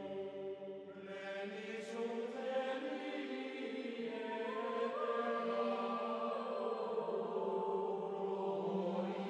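Background music of voices chanting in long held notes, choir-like, with the pitch moving slowly from note to note.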